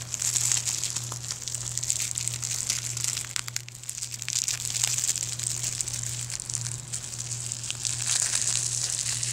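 Plastic shrink-wrap crinkling and tearing as it is peeled off a DVD case, a dense run of crackles and small snaps.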